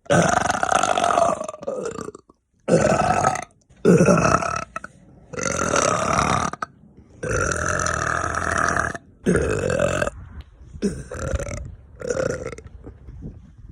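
A woman burping loudly over and over: about eight long, drawn-out burps, each lasting up to a second or two, with short pauses between them.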